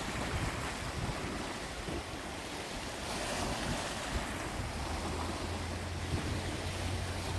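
Sea waves washing, with wind buffeting the microphone. A steady low hum joins about four seconds in.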